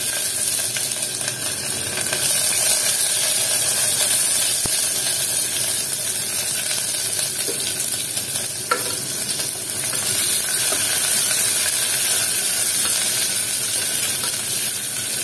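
Sliced onions sizzling steadily in hot oil and ghee in an aluminium pressure cooker, with one sharp knock about nine seconds in and a wooden spatula stirring them near the end.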